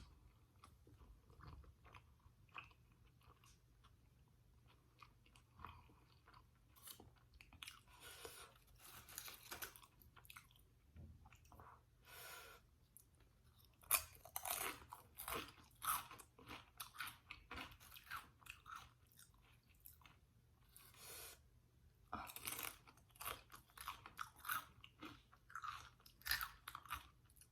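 Close-miked eating sounds: chewing with crisp crunches of Doritos tortilla chips, coming in clusters of rapid crackles with quieter gaps between.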